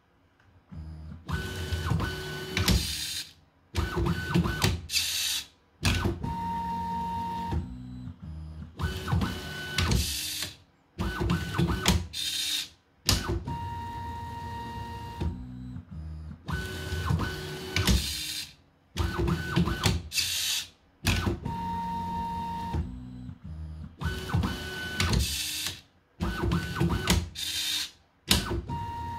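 A tool-changing 3D printer's stepper motors whine through a repeated tool-change sequence: a series of short moves at different pitches with brief pauses between them. The same pattern of moves repeats about every eight seconds.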